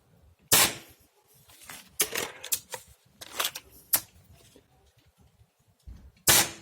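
Gamo Whisper X air rifle fired twice, about six seconds apart, with smaller clicks and knocks between the shots. The shots come just after two drops of Vaseline oil were put into the rifle, so they are dieseling shots, meant to fire with extra power.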